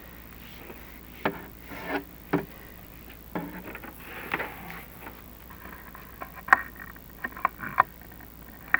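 Chimney inspection camera knocking and scraping against the flue walls as it is lowered down the flue: a string of irregular sharp knocks and short scrapes, with a cluster of knocks near the end.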